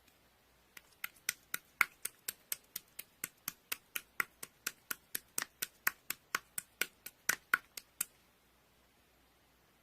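A rapid, even run of sharp clicks or taps, about four a second, that starts just under a second in and stops abruptly about eight seconds in.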